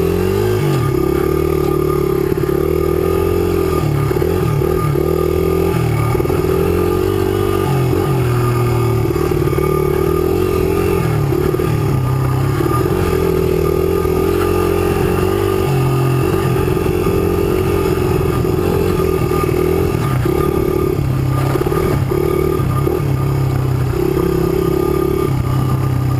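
Small air-cooled single-cylinder four-stroke engine of a 2005 Honda CRF100 dirt bike running continuously on trail. Its pitch rises and falls every second or two as the throttle opens and closes over rough, rocky ground.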